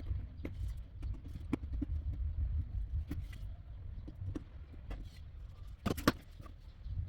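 Hands-on workshop handling noises: scattered light clicks and knocks, with a louder clatter about six seconds in, over a low rumble.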